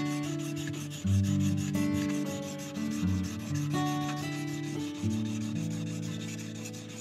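Steel knife blade scraped back and forth on a whetstone in quick, even strokes: hand sharpening. Light background music with a plucked melody plays under it.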